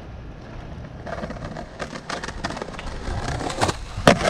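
Skateboard wheels rolling over rough, cracked concrete with a low rumble and scattered clicks, then a sharp knock near the end.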